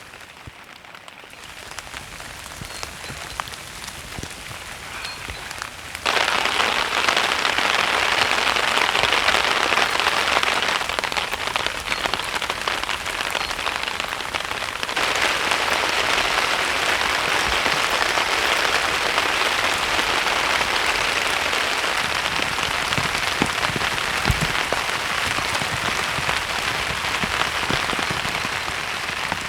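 Heavy rain falling as a dense patter of drops, jumping suddenly louder about six seconds in.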